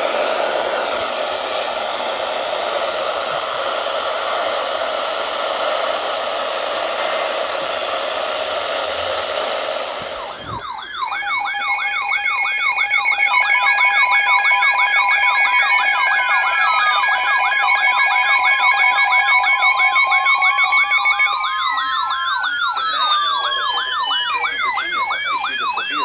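Several electronic alert tones sounding on top of one another, starting about ten seconds in: fast up-and-down yelping sweeps, steady beeping tones, and slow rising and falling wails. Before they start there is a dense, steady rushing noise.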